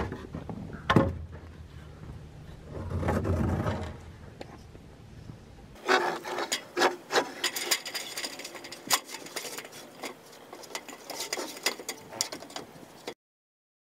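A wooden rafter being pushed up and slid across the wooden roof framing: wood rubbing and scraping on wood, with a knock about a second in and a dense run of sharp knocks and scrapes in the second half. The sound cuts off suddenly near the end.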